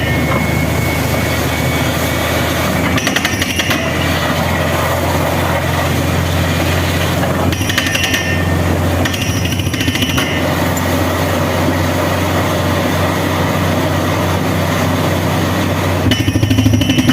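Borewell drilling rig running: a steady engine drone with a fast, continuous rattling hammer over it.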